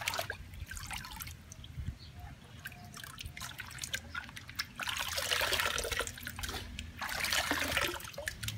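Water splashing and trickling as a tie-dyed cloth is swished and squeezed by hand in a plastic tub of water. Louder stretches of splashing come twice in the second half, with water running off cupped hands near the end.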